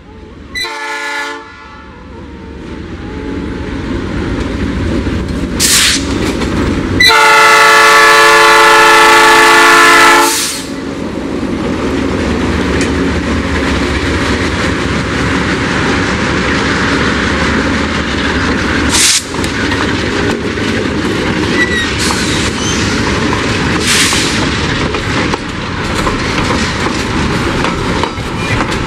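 Lead GE C30-7 diesel locomotive sounding its multi-note air horn, a short blast then a long one of about three seconds, with the diesel engines running as the locomotives pass. Then empty freight wagons rolling by with steady wheel clatter and occasional knocks.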